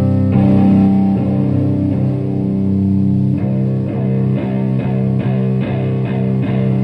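Electric guitar, a Stratocaster played through a Rat-style distortion pedal into a Marshall Plexi amp and 4x12 cabinet: held chords ringing, then about halfway through a run of short repeated chord strikes, about three a second, that ring out near the end.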